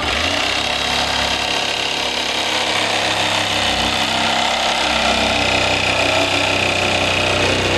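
Power tool running steadily as it cuts through a fiberglass ram air hood, with a continuous high whine.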